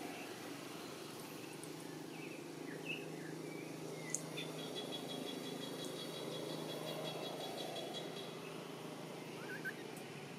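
Outdoor ambience: a steady low rumble with a faint hum, a few short high chirps, and a rapid high-pitched trill from about four and a half seconds in until about eight seconds.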